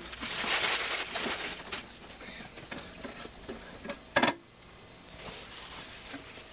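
Metal utensils working the ceramic-coated cast-aluminum griddle plate: a hissing scrape of grease being pushed across the warm surface in the first couple of seconds, small ticks, and one sharp clink of a utensil against the griddle a little after four seconds, then quiet wiping with a paper towel.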